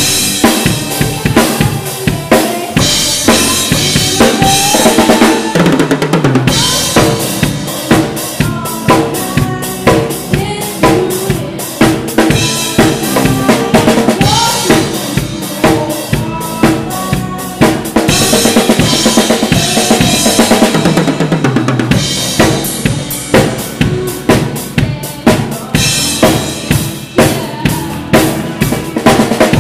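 Live rock band playing, heard from right behind the drum kit: the drums are loudest, a driving beat of bass drum, snare and cymbals, over electric guitars. Bright cymbal washes come and go in stretches.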